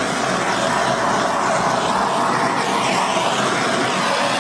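Handheld butane torch burning with a steady, even rushing hiss.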